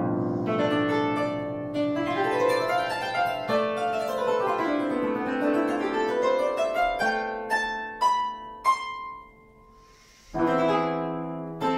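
Italian baroque triple harp (arpa doppia) played solo. Fast plucked scale runs sweep up and down, then slow to sparse single notes. After a short silence, full chords ring out near the end.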